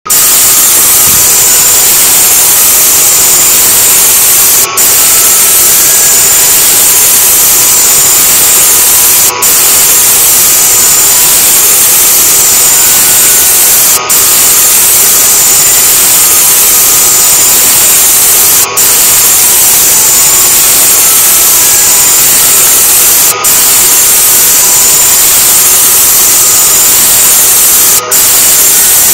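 Loud, steady hiss of static on an off-air analog TV recording, with faint tones buried beneath it. The hiss dips briefly about every four to five seconds.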